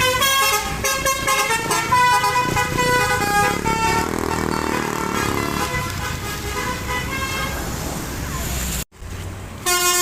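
Bus telolet horn playing rapid runs of short stepped musical notes, several tones at once, over a low rumble. It cuts off abruptly about nine seconds in, and a fresh burst of notes starts just before the end.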